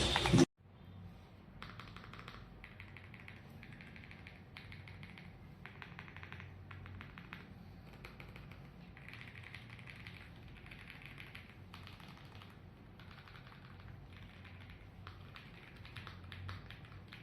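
Typing on an AULA F75 gasket-mount mechanical keyboard: fast, continuous runs of keystroke clacks in bursts with short pauses between them.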